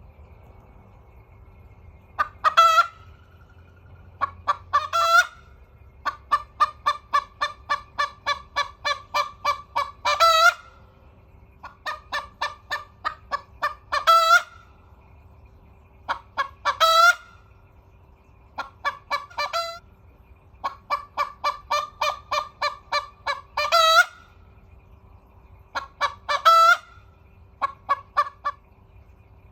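A hen, a Polish chicken, crowing over and over in about nine bouts. Each bout is a run of quick clucks, about four a second, that ends in one louder drawn-out call.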